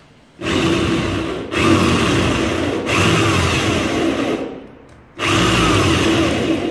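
CMI electric drill drilling out a rivet in a steel pocket-door frame. It runs for about four seconds with two brief dips, stops, and starts again about five seconds in.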